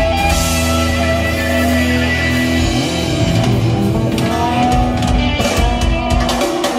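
Heavy metal music with electric guitar, starting abruptly just before and playing loudly throughout.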